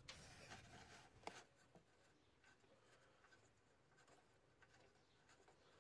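Very faint scraping and handling of parts, with a sharp click a little over a second in, then a few light ticks.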